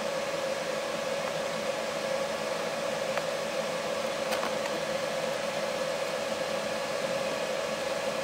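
Steady background hiss with a constant mid-pitched hum. Two faint clicks come about three and four and a half seconds in, as a small screwdriver works the screws on the laptop's back plate.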